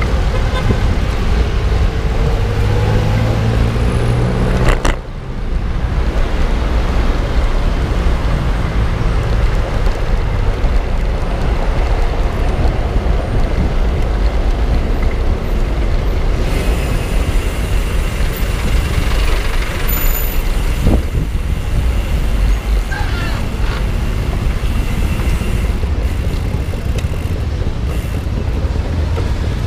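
Road traffic: passing vehicle engines and tyre noise with a heavy low rumble, briefly dipping about five seconds in.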